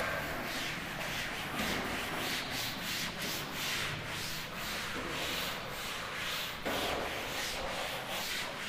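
A cloth wiping chalk off a chalkboard: repeated back-and-forth rubbing strokes of cloth on the board, a few a second.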